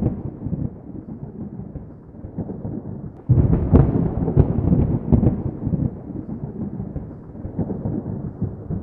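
Thunder rumbling, with a loud swell that starts suddenly about three seconds in and then fades away.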